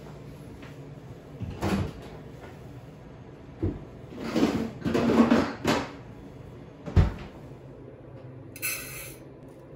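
Kitchen cabinet knocking and pots clattering as someone gets cookware out: a knock, then a few seconds of clattering, then a single thump. Near the end comes a short hiss of dry rice poured from a measuring cup into a pot.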